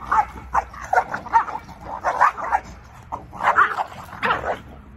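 Belgian Malinois puppies barking in quick, short bursts while play-fighting, the barks stopping just before the end.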